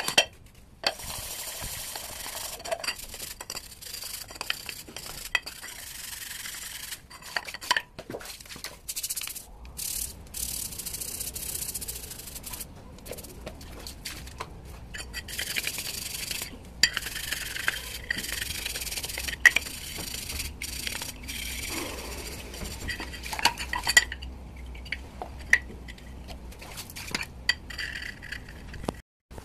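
A stiff brush scrubbing the metal end covers of an electric fan motor, in stretches of a few seconds with short pauses, with a few sharp clinks of metal parts.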